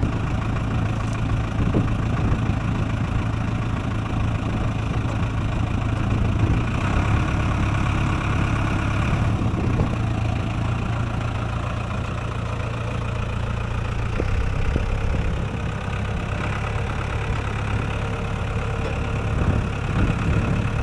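Farm vehicle engine running steadily with a low drone; its note changes slightly about fourteen seconds in.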